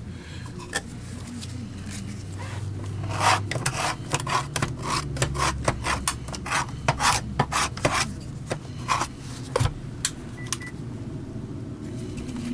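Quick, uneven scraping and rubbing strokes on a vacuum power head, several a second, starting a few seconds in, as caked-on dirt is worked loose from it, over a low steady hum.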